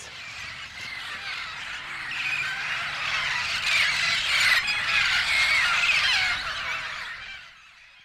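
A large flock of roosting parrots, red-crowned parrots among them, squawking all together in a dense chorus of harsh calls. It swells after about two seconds and fades out near the end.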